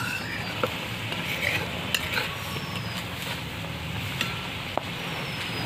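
A thick poppy-seed curry sizzling in a kadai while a spatula stirs it, knocking against the pan a few times. The curry is nearly done.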